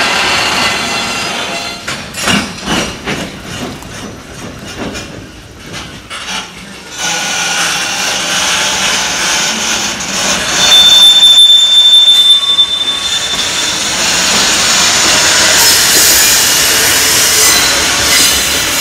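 Long freight train of container flatcars rolling past, wheels clacking over rail joints in a quick run of clicks for the first few seconds, then a louder steady rumble and rush. Around the middle a high, steady metallic squeal from the wheels rides over it for a couple of seconds.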